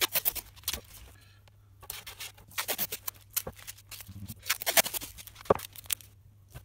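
Masking tape being pulled off the roll in short crackly rips and smoothed down onto a laminated furniture board, with a single knock about five and a half seconds in.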